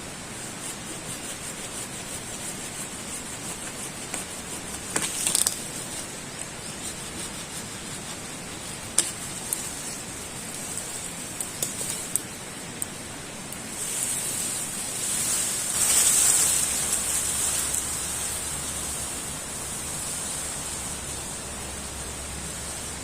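Steady rain hiss, with a few sharp ticks scattered through and a swell of louder rushing about two-thirds of the way through.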